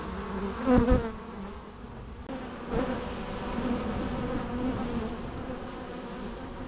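Bees buzzing in a steady, many-voiced hum, with a louder, wavering buzz about a second in and a smaller swell near three seconds.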